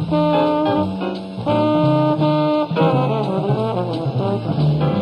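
Jazz trombone playing a slow melody of long held notes, with a quick run of short notes about three seconds in.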